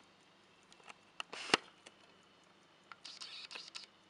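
Faint, fast ticking of an antique Marconi pocket-watch movement, about five ticks a second. Over it come handling noises: a sharp click about a second in, a short scrape with a louder click about a second and a half in, and a longer scraping rustle near the end.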